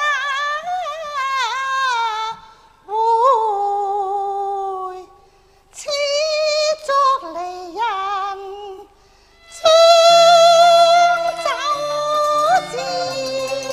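High female voice singing Cantonese opera: drawn-out phrases that glide and waver with vibrato, separated by short pauses. About ten seconds in, a long held note comes in over a low instrumental accompaniment.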